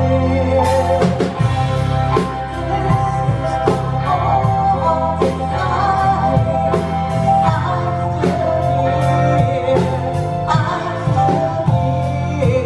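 A live band plays a slow rock ballad, with a steady drum beat and bass under a woman singing long held notes.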